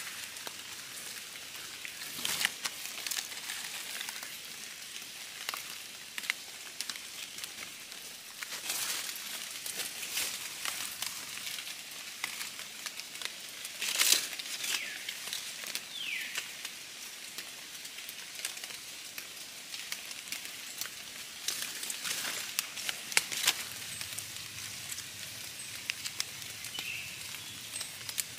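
Dry fallen leaves and twigs rustling and crackling as someone steps and picks through leaf litter by hand, in scattered bursts, the loudest about halfway through. A steady high hiss of forest background lies underneath.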